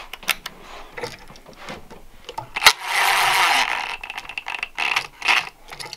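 DeWalt cordless drill/driver running for about a second, about three seconds in, driving a screw on a light switch, amid scattered clicks and knocks of the tool and switch being handled.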